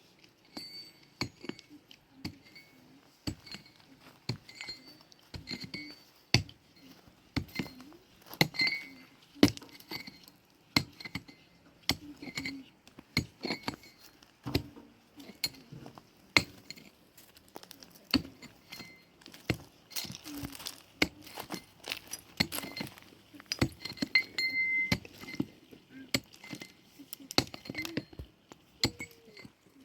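Many irregular sharp clinks and knocks of hard objects striking each other, some with a brief ringing tone.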